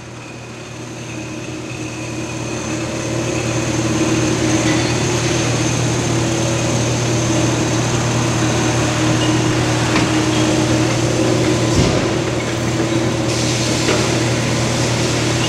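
CNC mandrel tube bender running its program on a seat-back frame tube: a steady machine hum that swells over the first few seconds and then holds. A single knock comes near the end, followed by a hiss.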